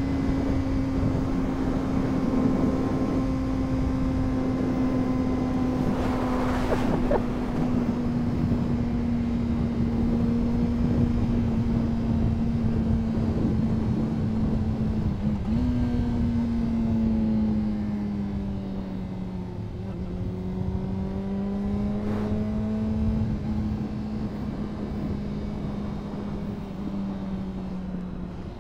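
Honda CBR600RR's inline-four engine running at a steady cruise under wind noise. Its note sinks slowly, jumps up briefly about halfway through, then dips and rises again before falling off near the end as the bike eases off.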